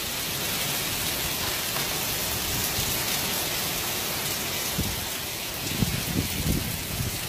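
Heavy downpour of rain falling steadily, with a few short low bumps in the second half.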